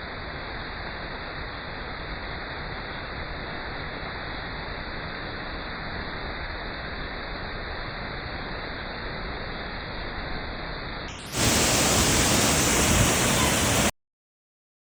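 Steady rush of a waterfall. About eleven seconds in it jumps to a louder, brighter rush of water, which cuts off abruptly near the end.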